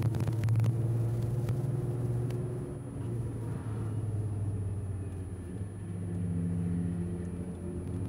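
Low, steady engine drone and road noise from cars driving slowly in traffic, the engine pitch shifting a couple of times as the speed changes.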